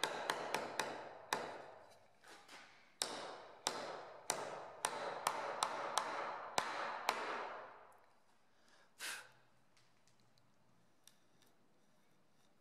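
Hammer striking a bent nail in a plywood board, knocking it over flat: about fifteen sharp taps, each with a brief ring, in a quick run, a short pause, then a second steady run that stops about seven seconds in. A single duller knock about nine seconds in.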